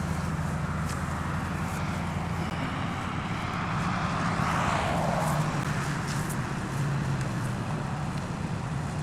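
A 4x4's engine running steadily as it drives the off-road track, with a rush of tyre and ground noise that swells about four to five seconds in and falls in pitch as it goes by.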